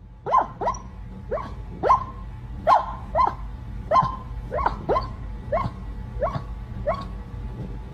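A sleeping dog barking and yipping in a dream: about a dozen short woofs, each dropping in pitch, coming at one or two a second.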